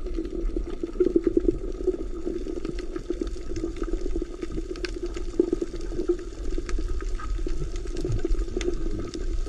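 Underwater sound picked up by a submerged camera over a coral reef: a steady muffled water rush with scattered faint crackles and clicks.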